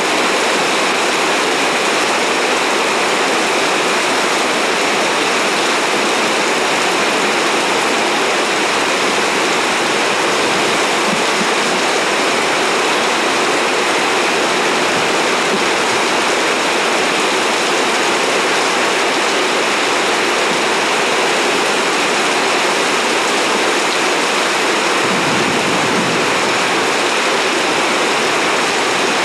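Heavy rain pouring down in sheets, a loud steady hiss.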